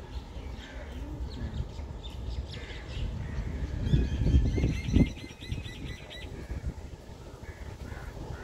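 Birds calling over a steady low rumble, with a rapid, evenly pulsed trill for about two seconds near the middle and a louder low swell about four seconds in.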